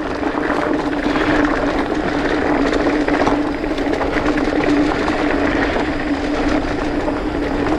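Polygon Siskiu T8 mountain bike coasting fast down a dirt trail on knobby Maxxis Dissector tyres: a steady whir from the rolling bike, with tyre noise over dirt and small rocks, scattered clicks and rattles, and wind rushing on the microphone.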